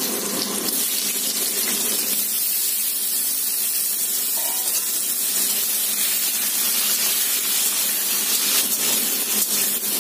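Raw green mango pieces frying in hot mustard oil with dried red chilli and panch phoron in a kadai: a steady sizzling hiss.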